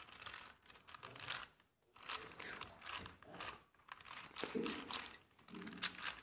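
4x4 Rubik's cube being turned by hand: quiet, irregular plastic clicks and scrapes as its layers are rotated, several turns a second.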